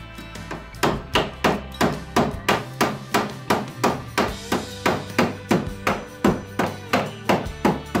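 Hammer tapping a sheet-metal patch panel on a Jeep Wrangler YJ fender, about three strikes a second in a steady rhythm, each with a short metallic ring.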